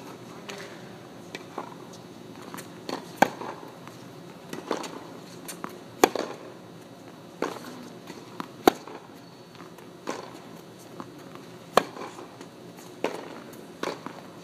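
Tennis rally on a hard court: a racket striking the ball sharply, the loudest hits coming about every three seconds, with softer ball bounces and hits in between.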